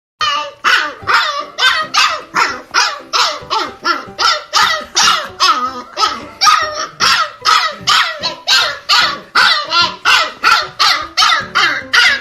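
Dog barking loudly and repeatedly in a steady, unbroken run of about two barks a second.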